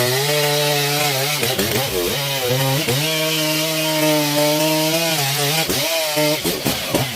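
Chainsaw running under load, cutting through wood at high revs. The engine note sags briefly about two seconds in and again near the end, then picks back up.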